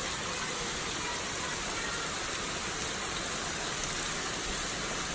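Heavy downpour of rain: a steady, even hiss of rain pouring onto a lawn, brick paving and a wooden porch.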